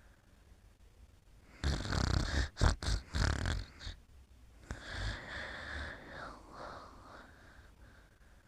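Snoring in sleep: a loud, rough, fluttering snore about a second and a half in, followed by a softer, longer breath a little later.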